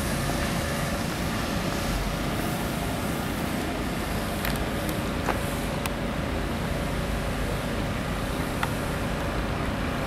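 Steady urban traffic noise, an even hum of passing road vehicles, with a few faint clicks about halfway through and again near the end.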